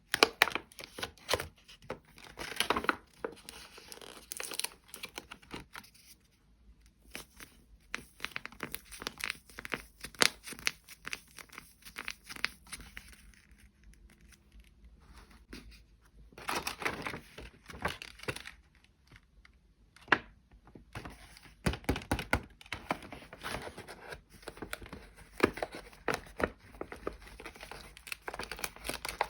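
Blind-box packaging being torn open and crinkled by hand: irregular rustling, tearing and crackling, quieter for a stretch in the middle before picking up again.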